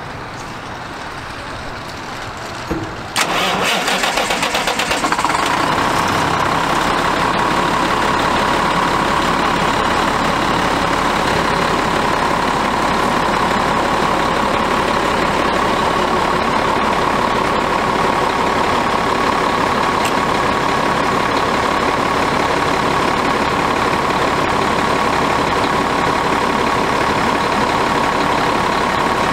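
Cummins ISM straight-six diesel of a 2010 Autocar Xpeditor truck being started: about three seconds in it cranks in uneven pulses for roughly two seconds, catches, and settles into a steady idle with a high whine.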